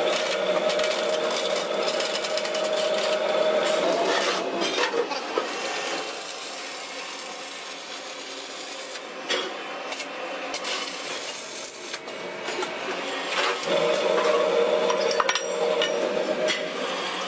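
A steady machine hum, then, from about four seconds in until about three and a half seconds before the end, the dense crackle and sputter of arc welding on a clamped electric-motor stator lamination stack, with sharp clicks. The hum returns after the welding stops.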